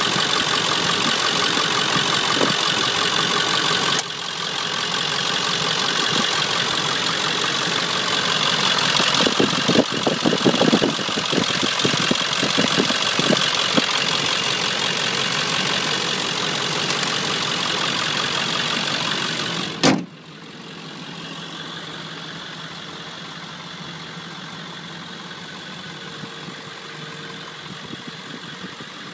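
Ford 7.3 L Powerstroke turbo-diesel V8 idling, heard close under the open hood, with a few sharp knocks about ten to thirteen seconds in. About twenty seconds in the sound drops suddenly to a quieter, more distant idle.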